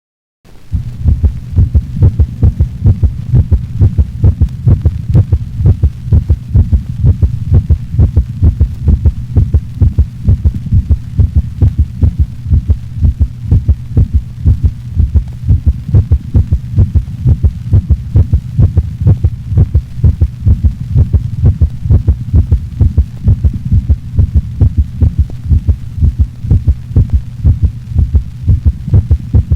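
Recorded dog heart sounds: fast, even beats with a constant low rumble under them, starting about half a second in.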